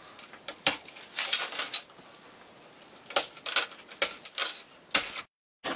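A large, sturdy gingerbread house being broken apart by hand: dry cracks, snaps and crunches of gingerbread and its candy decorations, coming in several short clusters. The sound cuts out completely for a moment near the end.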